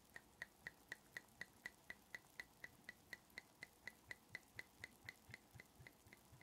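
Glass bottle of cloudy sake glugging as it is poured into a bowl, the liquid gurgling out in an even rhythm of about four glugs a second as air bubbles back into the neck. The pour stops just before the end.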